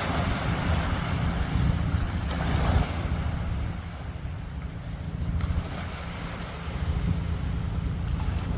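Sea waves washing onto the shore with wind buffeting the microphone in a steady low rumble; two louder washes of surf come in the first three seconds.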